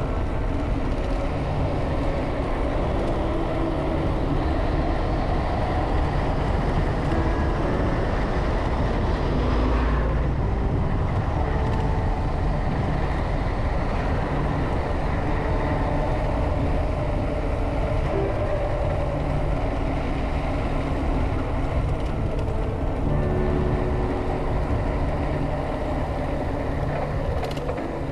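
Wind rushing over an action camera's microphone and bicycle tyres rumbling on a paved road on a fast downhill run, a steady noise heavy in the low end.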